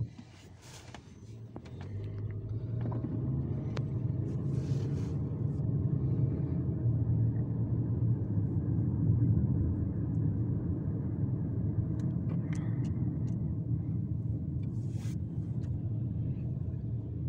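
A car driving: steady low rumble of engine and road noise that swells over the first couple of seconds and then holds level, with a few faint clicks.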